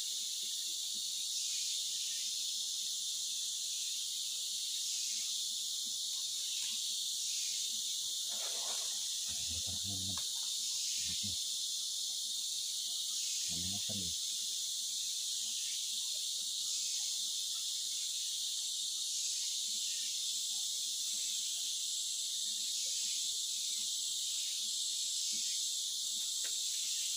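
Steady chorus of rainforest insects, a dense high-pitched shrill that swells and fades slightly every second or two. A few brief low sounds come near the middle.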